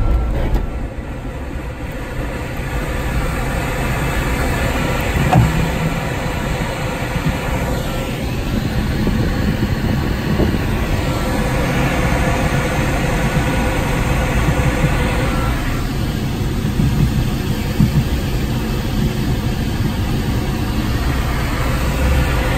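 Steady rush of air around the cockpit of a Puchacz two-seat glider climbing on a winch launch, a rumbling noise with no engine, broken by a couple of brief knocks.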